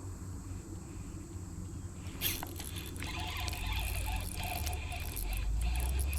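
Fishing reel working as a hooked smallmouth bass pulls: a sharp click about two seconds in, then rapid ticking and rasping from the reel and line. A low steady rumble of road traffic runs underneath.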